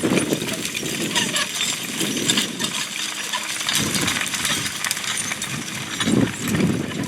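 Irregular metallic clinking and rattling from horse-drawn potato-harvesting gear, a rapid scatter of small metal knocks.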